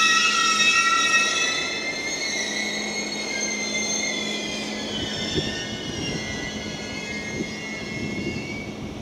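Steel train wheels squealing on curved track: several high, steady ringing tones that fade away over the first half. A steady low hum and a few dull knocks run beneath them.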